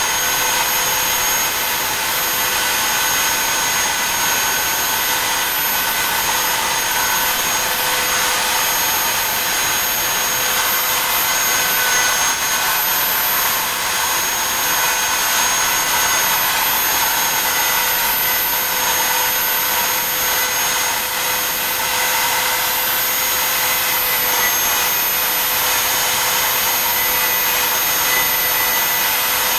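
Router spindle of a BobsCNC E3 desktop CNC running at high speed as its pointed bit carves star outlines in wood: a steady high whine over a cutting hiss. The pitch dips briefly a few times as the bit takes more load.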